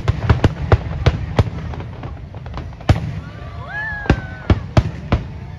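Aerial firework shells bursting in quick succession: a rapid string of sharp bangs over a low rolling rumble. The barrage thins out after about a second and a half, with one loud bang near the middle and a few more toward the end.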